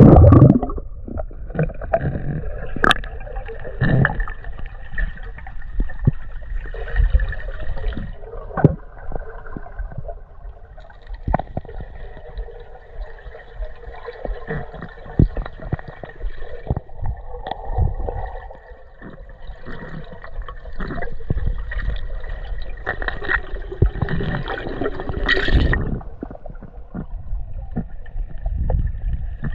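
Water gurgling and bubbling around a camera in the water, with many scattered small clicks and knocks throughout and a few louder surges of water noise near the start and end.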